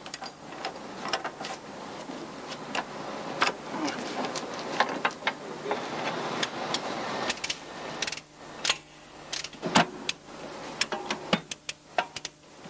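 Heavy steel lashing chains clinking and clanking irregularly, with sharp metal knocks, as they are handled and tightened to fasten a load down.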